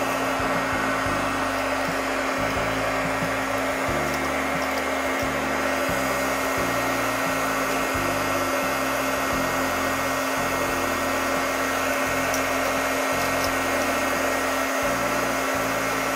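Heat gun running steadily, blowing hot air with a constant motor whine.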